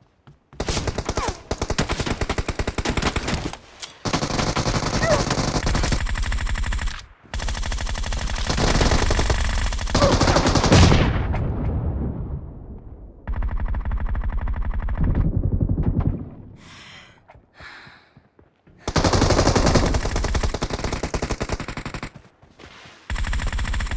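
Video game automatic gunfire: about six long bursts of rapid fire, each lasting a few seconds, separated by short pauses.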